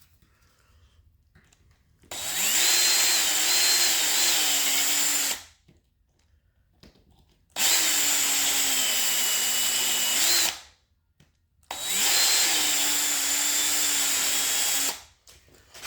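Electric drill run in three bursts of about three seconds each. Each burst spins up, then holds a steady whine as a slightly larger bit countersinks a screw hole.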